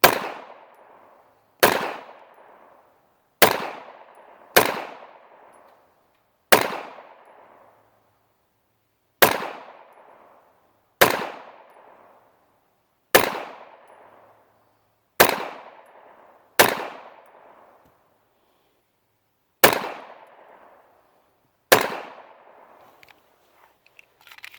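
A pistol fires twelve single shots of remanufactured ammunition at an uneven pace, about one to three seconds apart, each crack trailing off in echo. The magazine runs through without a misfire or light strike.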